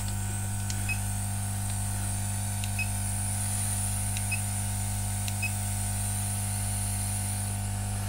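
Hot air gun running steadily, a low hum with a high hiss from its fan and air flow, warming a circuit board back up after freeze spray during thermal fault-finding. A few faint ticks sound over it.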